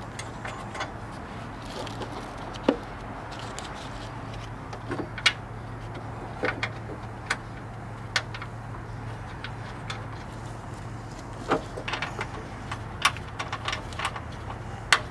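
Scattered light metallic clicks and taps of gloved hands starting the nuts onto the studs of a car's transmission mount by hand, over a steady low hum.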